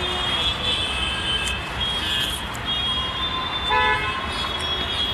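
Road traffic with car horns honking: several separate horn blasts over a steady traffic noise, the clearest a little under four seconds in.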